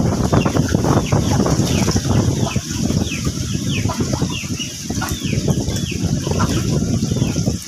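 A crowd of catfish churning and splashing at the surface of a concrete pond, a dense patter of small splashes that eases a little partway through. Over it come short, high, falling peeps repeated two or three times a second.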